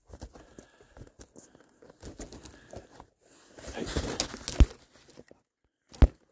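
Rustling and crinkling with scattered small clicks, building to a louder rustle a little before halfway and ending in a sharp knock, then a second sharp knock near the end.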